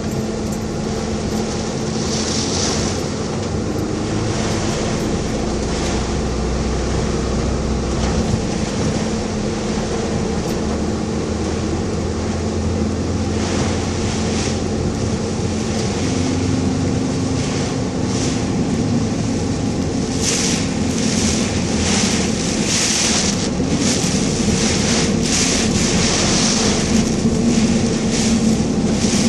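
Inside a moving car in a typhoon: a steady engine and road drone, with surges of hiss from the storm wind buffeting the car. The surges grow more frequent in the second half.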